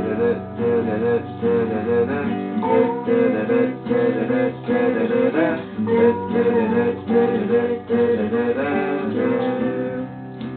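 Acoustic guitar music: strummed acoustic guitar with a picked melody in an instrumental break of a lo-fi folk song.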